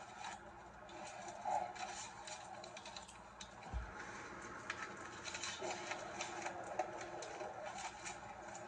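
Faint handling noises: scattered light clicks and rustles, as of hands moving things about, with a low muffled murmur underneath.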